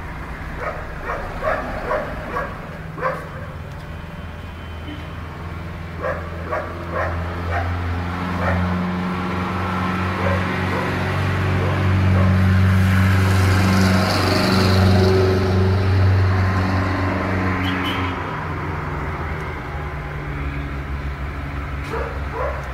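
A dog barking in short bursts over a steady low rumble that swells in the middle.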